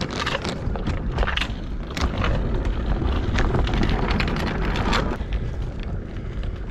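Kick scooter wheels rolling fast over a tarmac path, a steady low rumble with scattered clicks and rattles from bumps in the surface, and wind buffeting the microphone.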